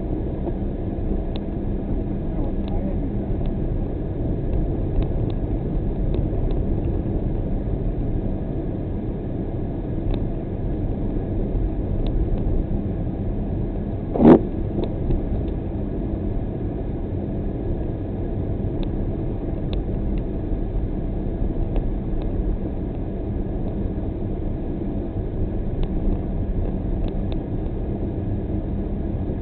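Steady engine and tyre noise of a car driving on a snow-covered road, heard from inside the cabin, with faint scattered ticks. A single sharp knock comes about halfway through.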